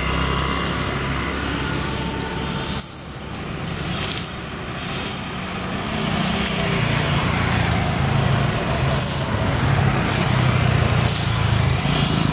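Diesel locomotive engines running at a station, a steady low hum that grows louder about halfway through.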